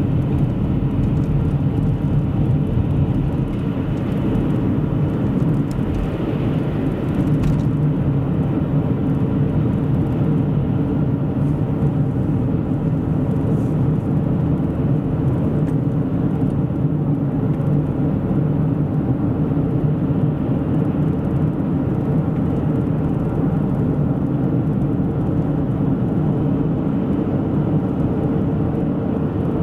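Car driving steadily on a highway: a continuous low rumble of engine and tyre road noise, heard from inside the car.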